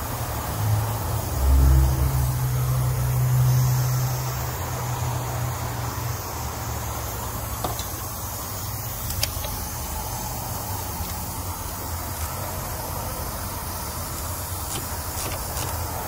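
Steady low mechanical hum, like a vehicle or machine running nearby, that swells for a couple of seconds about two seconds in. There are a few light clicks near the end.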